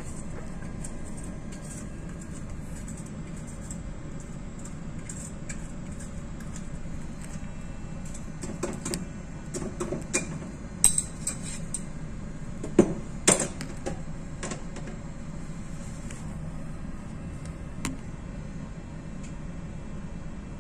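Steady low hum of a ship under way, heard from inside its cabin. Between about eight and fourteen seconds in, a run of sharp clinks and knocks comes in, with the loudest strikes near the middle of that run.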